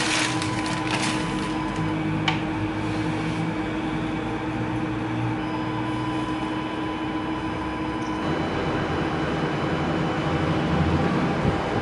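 A steady hum with a constant low tone. Rustling in the first second and a sharp click about two seconds in, with the hum changing in character about eight seconds in.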